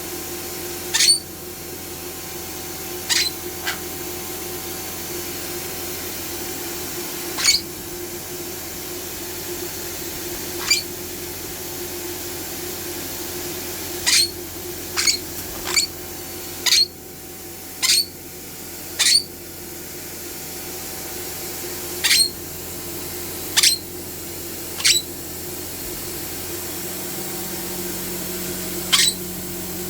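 Vacuum cleaner running steadily with a hum, while the pet being hoovered gives about fifteen short, high-pitched squeaks at irregular intervals.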